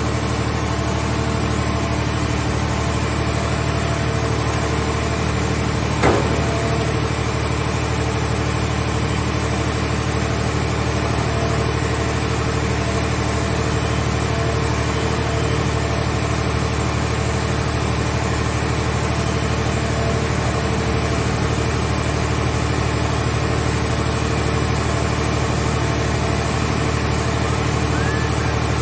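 Scrap car baler's engine running steadily at a constant speed, with a single sharp knock about six seconds in.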